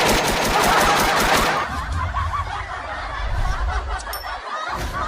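Rapid repeated shots like a machine-gun sound effect, stopping about a second and a half in, followed by snickering laughter.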